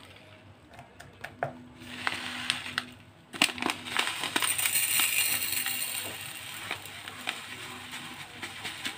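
Plastic bag rustling, then from about three and a half seconds in, sodium hydroxide (caustic soda) granules poured from the bag into a stainless steel jug, a dense stream of small ticks and hiss as the grains hit the metal, easing off toward the end.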